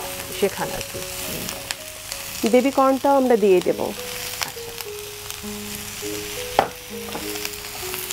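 Vegetables sizzling in hot oil in a frying pan as they are stirred with a wooden spatula, with scattered scrapes and taps of the spatula against the pan. Soft background music with held notes plays underneath, and a short voice sounds about three seconds in.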